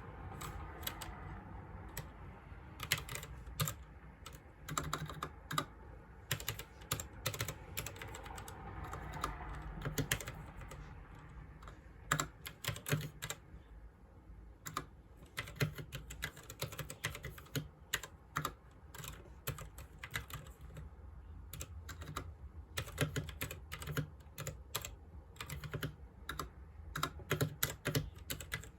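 Typing on a newly unboxed RGB computer keyboard: a fast, uneven run of key clicks, with short pauses between bursts.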